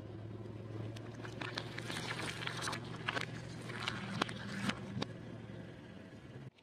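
Car tyre slowly rolling over green citrus fruits, the peel crackling and popping with sharp cracks about four seconds in, over the steady hum of the idling car engine. The sound cuts off abruptly near the end.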